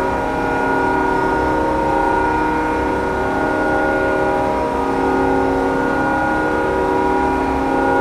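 The Erie Otters' arena goal horn sounding one long, steady multi-note blast. It is the horn that signals an Otters goal.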